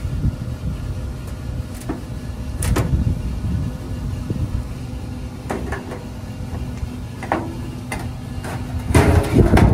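Scattered knocks and clicks of metal parts and tools being handled, building to a louder clatter near the end, over a steady low rumble with a faint hum.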